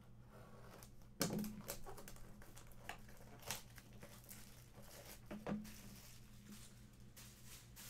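Hands working a plastic-wrapped pack of hockey cards: faint, irregular crinkling of the wrapper mixed with light clicks and taps of the cards. It starts about a second in.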